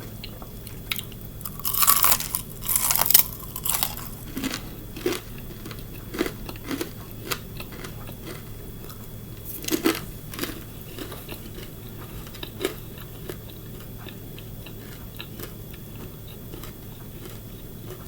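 Close-up biting and chewing of crispy fried chicken gizzards: loud crunches about two to four seconds in and again around ten seconds, then softer, wetter chewing.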